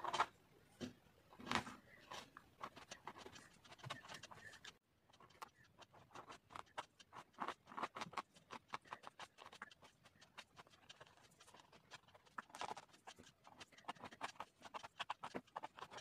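A wooden toothpick scratching through dried black gouache into the wax-crayon layer beneath, on thick paper: faint, quick, short scraping strokes, several a second.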